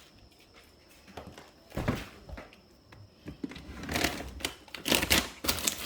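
Rustling and crinkling of snack packaging being handled, in short irregular bursts: one about two seconds in, then a busier stretch in the last two seconds.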